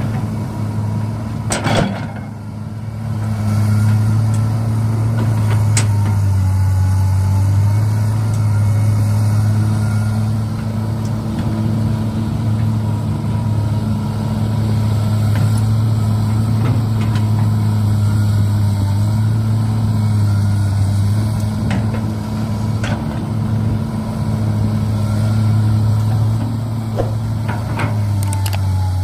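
Steady low engine-like drone from radio-controlled model construction vehicles, with a few sharp clicks scattered through it.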